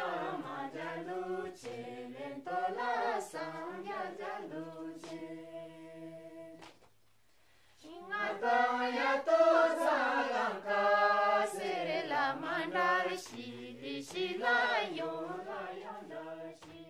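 Vocal music on the soundtrack: choral singing that breaks off for about a second, seven seconds in, then resumes and fades near the end.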